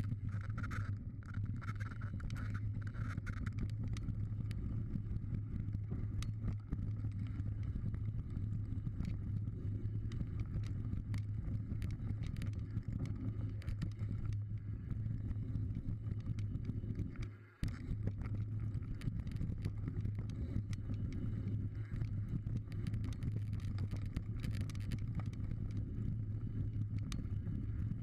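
Mountain bike riding a dirt trail, heard through a camera mounted on the bike: a steady low rumble of tyres and wind with frequent rattles and knocks from the bike over the rough ground. The sound briefly cuts out about seventeen seconds in.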